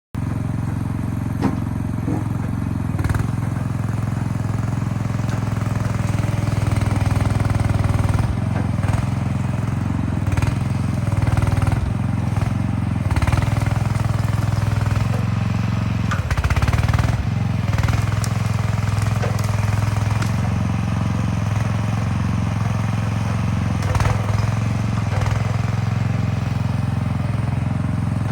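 Mini skid steer's engine running steadily as the machine works, its pitch swelling briefly a few times, with occasional sharp knocks and clanks.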